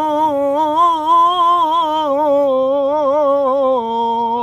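A man's voice in melodic Quran recitation, holding one long note with wavering ornaments on the verse's closing words 'wa la hum yahzanun'. The pitch steps down a little near the end.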